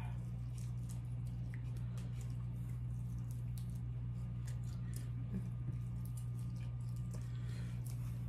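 Eating sounds: small wet smacks and clicks of chewing and of sauced chicken wings being pulled apart by hand, scattered throughout over a steady low hum.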